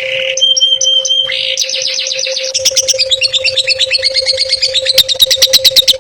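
Songbird singing in a masteran recording made for training cage birds: fast, varied phrases of chirps and trills. It opens with a short held whistle, then runs into rapid repeated notes that become sharp, quick strokes about five seconds in. A steady low hum sits underneath.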